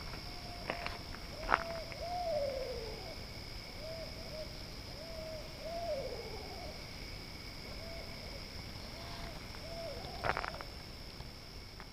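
Barred owl hooting in a rhythmic series, two phrases each ending in a drawn-out falling note, then a few more hoots. A few sharp clicks cut in, the loudest about a second and a half in and another near the end.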